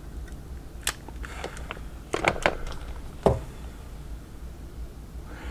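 Light clicks and taps of small tools and parts being handled during soldering: one about a second in, a quick cluster around two seconds, and a sharper tap just past three seconds, over a low steady hum.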